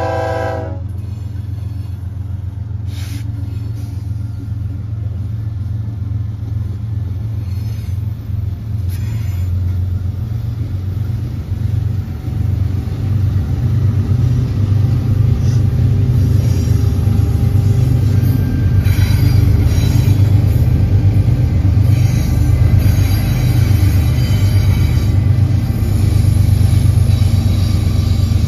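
Freight train of several BNSF diesel-electric locomotives passing close by, a deep steady rumble that grows louder in the second half. A train horn blast cuts off within the first second.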